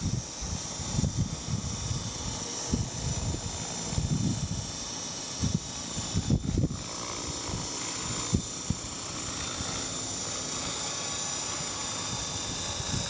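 TAYA Innovator radio-controlled helicopter in flight, its rotor and drive giving a steady high whine, while strong gusting wind buffets the microphone with uneven low rumbles.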